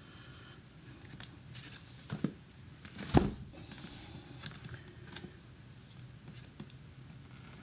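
Box cutter working at packing tape on a cardboard box: scattered small clicks, scrapes and rustles of handling, with a louder knock about three seconds in followed by a brief high scratching.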